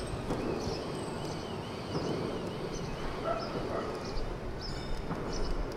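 SYM Wolf 125's single-cylinder four-stroke engine idling steadily on its stand. Faint, high, repeated animal-like calls sound over it during the first couple of seconds.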